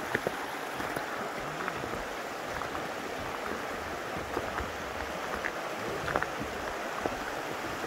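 Snowmelt creek rushing steadily over rocks, with a few faint scattered ticks over it.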